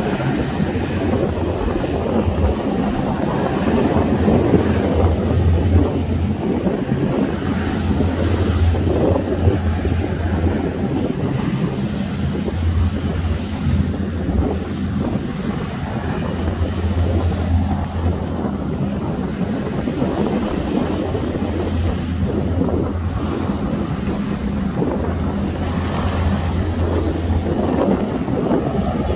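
Wind buffeting the microphone over choppy sea, with a steady low drone from the engines and propellers of a hovercraft out on the water.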